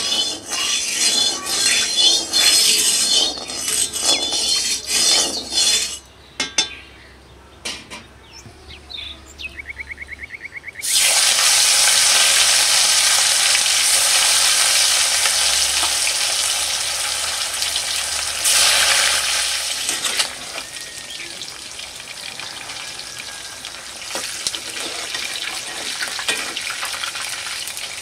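Stirring and scraping in a frying pan, then a loud sizzle starts suddenly about eleven seconds in as food hits hot oil. The frying then carries on and slowly fades.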